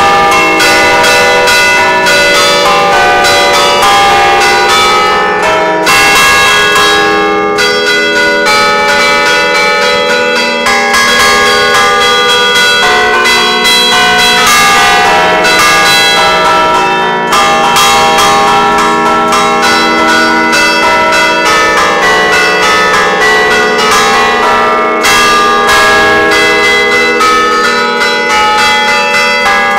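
A concerto of five church bells tuned to a slightly flat E (Mi3 calante), cast by Luigi Ottolina in 1961, rung in a festive peal. The strokes of the different bells follow one another without a break, their tones overlapping and ringing on, loud and close inside the belfry.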